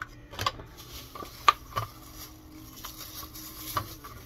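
Empty toiletry containers being handled on a table: a handful of sharp clicks and knocks, the loudest about a second and a half in.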